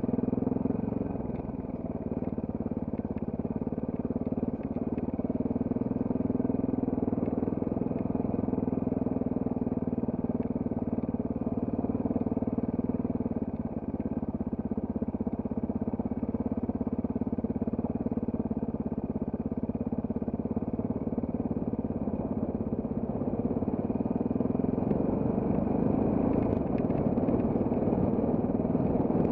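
Trail motorcycle engine running steadily while being ridden off-road. It eases off briefly about a second and a half in and again about halfway through, and picks up a little near the end.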